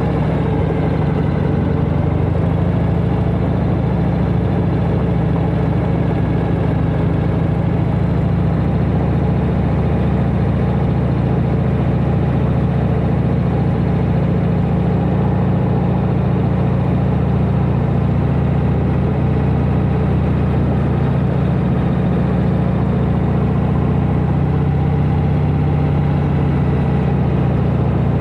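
1992 Harley-Davidson Heritage Softail Classic's 1340 cc Evolution V-twin running steadily as the motorcycle is ridden, a low, even engine note with no change in throttle.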